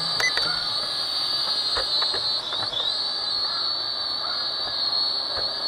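Xinlin Shiye X118 FPV quadcopter in flight, its motors and propellers giving a steady high whine of several close tones. The pitch dips and recovers about two and a half seconds in as the throttle changes.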